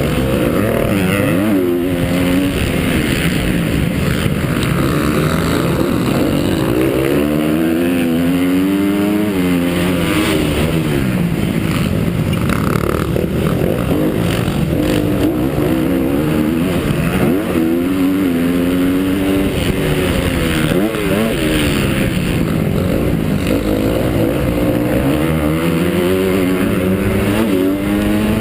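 Honda CRF250 single-cylinder four-stroke motocross bike engine heard from the onboard camera, its revs climbing and dropping again and again as it accelerates, shifts and backs off around the track, under constant wind and track noise.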